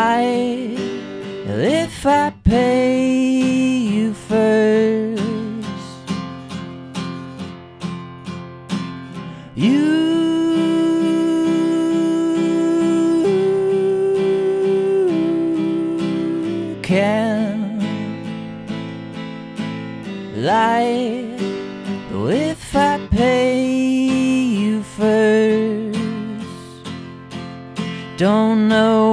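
Acoustic guitar strummed under a man singing drawn-out, wordless notes, with one note held for several seconds in the middle.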